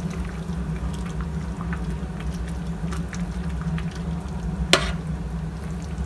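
Metal spoon stirring simmering soup with shredded cabbage in a stainless steel pot: soft scattered clicks and scrapes, with one sharp clink of metal on the pot about three-quarters of the way through, over a steady low hum.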